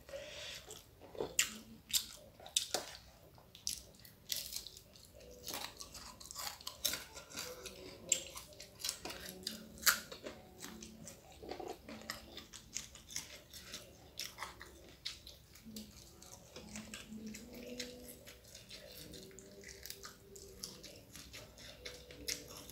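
Close-up eating sounds: a person chewing and biting crunchy food, here fried dried salted fish with rice and raw greens, giving irregular crisp crunches and wet mouth clicks.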